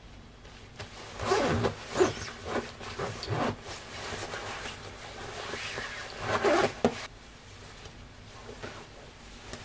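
Rustling of a puffer jacket's quilted fabric as it is put on and adjusted, with a zip being done up. It comes in bursts, loudest about a second in and again about six seconds in.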